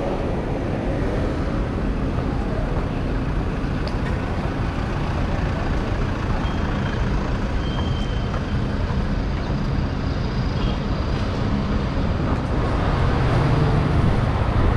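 City street traffic noise: a steady mix of car and motorbike engines. A low engine sound grows louder near the end as a motorbike comes close.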